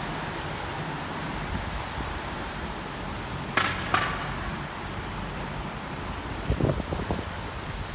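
Wet city street noise: a steady hiss of rain and road traffic. Two sharp clatters come about halfway through, and a few dull knocks near the end.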